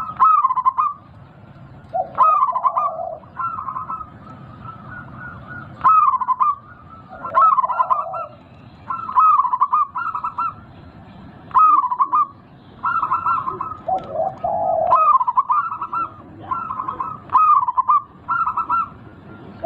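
Local zebra dove (perkutut) singing, a new cooing phrase every one to two seconds, each a quick run of warbled notes, some with a lower note.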